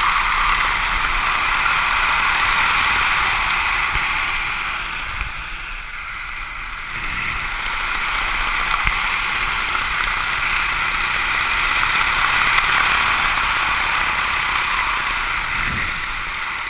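Steady rush of wind across a helmet-mounted camera's microphone during a descent under an open ram-air parachute canopy. It eases briefly about five seconds in, then builds again.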